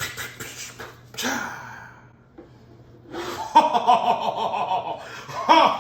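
A person laughing: short breathy bursts at first, then repeated laughter from about three seconds in.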